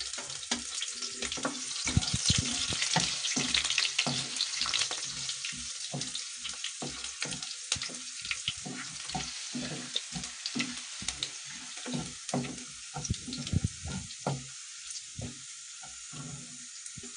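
Chopped garlic and cumin seeds sizzling in hot oil in a nonstick kadhai, stirred with a wooden spatula, with many small crackles and knocks. The sizzle is strongest in the first few seconds, then dies down as the garlic fries.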